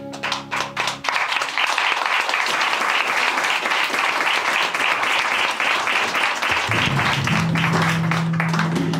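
Audience applauding: a few separate claps at first that fill out into steady clapping after about a second. Low music tones come in under the applause about seven seconds in.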